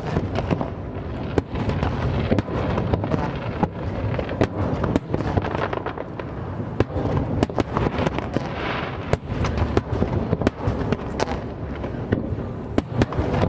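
Aerial fireworks bursting in quick succession: many sharp bangs and pops over a continuous low rumble, with a thicker spell of crackling about two-thirds of the way through.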